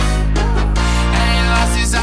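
Background music: a song with a heavy, sustained deep bass and a vocal line over it.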